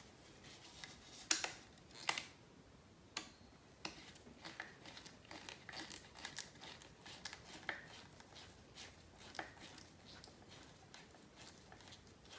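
Faint, irregular small clicks and ticks of a hand-held hex driver turning button screws into the plastic front bulkhead of an RC buggy, with a few sharper clicks in the first few seconds.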